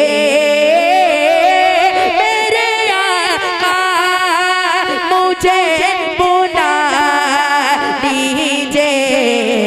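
A boy singing a naat solo through a microphone and PA. He holds long notes and ornaments them with quick wavering turns, with no clear words.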